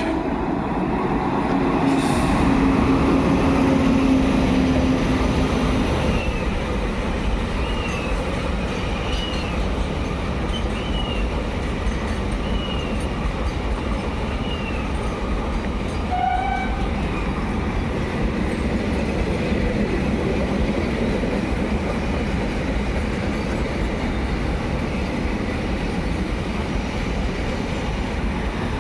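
Container freight train hauled by a WAG-9HC electric locomotive running past: a steady, heavy rumble of wagon wheels on rail. A low tone is held through the first six seconds, and short high chirps come about once a second in the middle stretch.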